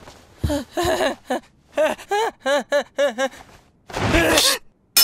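A young man's voice in broken, hysterical laughter, a run of short syllables rising and falling in pitch, then a strained yell about four seconds in. A sharp metallic clink comes right at the end.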